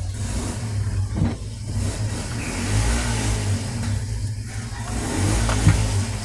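Washing machine motor running, with a steady low hum under a rushing noise.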